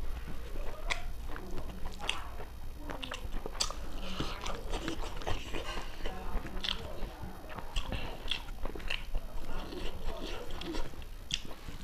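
Close-up chewing and lip smacking of a person eating rice and pork curry by hand, with many short, irregular wet mouth clicks over a low steady hum.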